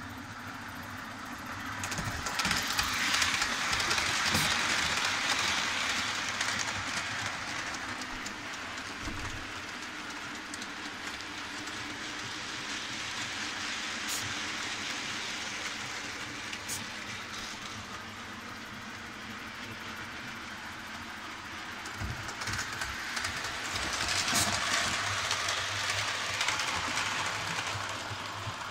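Hornby OO-gauge model trains running round a layout, a live-steam A4 Mallard and an electric-motored Raven Q6 hauling wagons: a continuous rushing clatter of wheels on track. It swells twice, a few seconds in and near the end, as trains pass close by.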